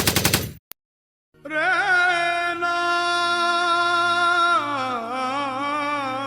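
A rapid rattling burst cuts off about half a second in; after a short gap, a single voice sings one long held note with a wobbling vibrato, sliding down to a lower note near the end, as a comic meme sound effect.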